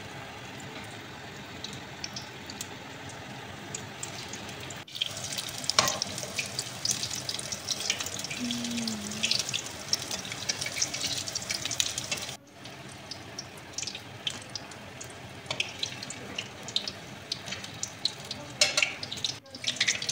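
Battered onion rings deep-frying in hot oil: a steady sizzle with dense fine crackling, louder after about five seconds. The sound briefly cuts out about five, twelve and nineteen seconds in.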